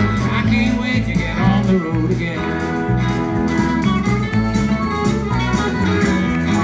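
Live country band playing an instrumental passage: acoustic and electric guitars, bass and drums, with a harmonica over them.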